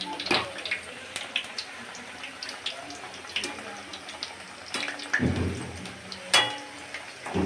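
Battered raw-banana slices deep-frying in hot oil in a steel kadai: a steady sizzle with scattered crackles. A wire skimmer clinks against the pan now and then, with a sharp ringing clink near the end.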